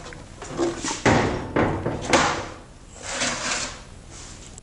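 Steel-framed door clad in cedar shiplap being swung shut against its welded steel frame. Three sharp bangs come in quick succession starting about a second in, the last the loudest, followed by softer noise.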